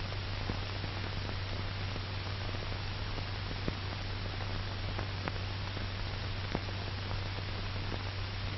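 Background noise of an old film soundtrack: steady hiss over a low hum, with a few faint clicks scattered through it.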